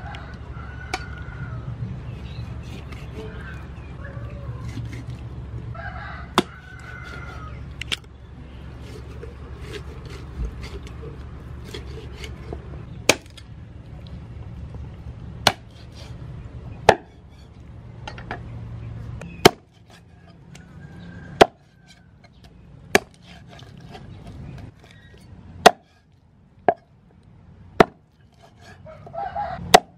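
Meat cleaver chopping raw chicken on a thick wooden chopping board: single sharp chops at uneven intervals, few at first and coming every second or two in the second half. Live chickens cluck faintly in the background about a second and six seconds in.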